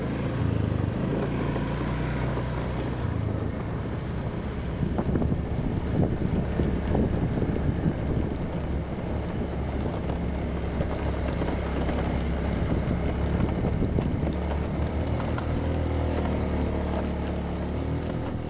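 An engine running steadily, a continuous low hum with rushing noise over it.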